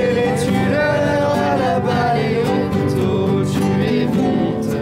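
Music: a song with a singing voice carrying a melody over guitar accompaniment.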